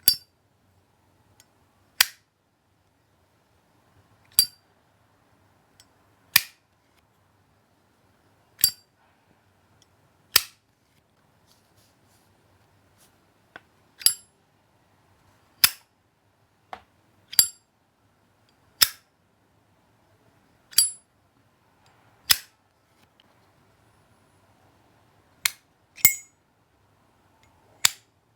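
Metal windproof lighters of the Zippo type having their hinged lids flipped open and snapped shut: a series of single sharp metallic clicks, some with a brief ring, about one every two seconds.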